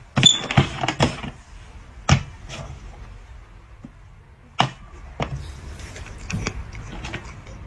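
Dark plastic cups knocking as they are set down and slid on a hard board: a scattering of sharp knocks, several close together in the first second, then a few more spaced out.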